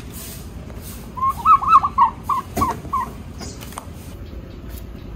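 A bird calling: a quick run of short, bending notes about a second in, then a few spaced notes. A single sharp click comes about two and a half seconds in.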